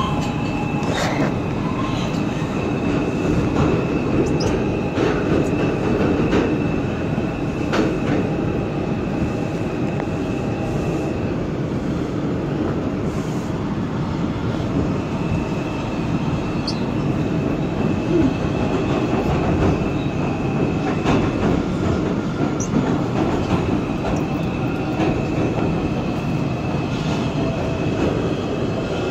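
NYC subway 4 train running through a tunnel: a continuous rumble of wheels on rail with scattered clicks over the track. A high steady whine runs through the first part, drops out for a few seconds near the middle, and comes back twice.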